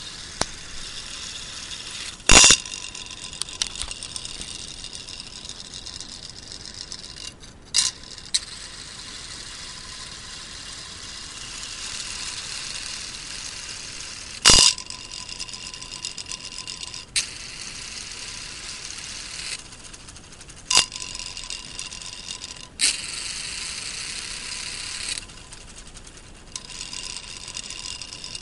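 Small electric motor driving a K'nex plastic two-speed gearbox, the gears whirring steadily. Sharp clicks come every few seconds as the gearbox is shifted between low and high speed, and the whir changes in tone after each.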